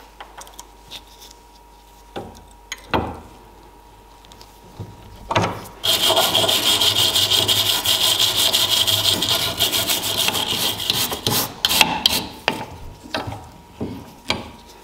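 Hand wire brush scrubbing rust off a small part of an old hand-forged drawing compass, held against a wooden bench. A few light knocks come first; then, about six seconds in, fast continuous scrubbing runs for about five seconds and breaks up into scattered strokes.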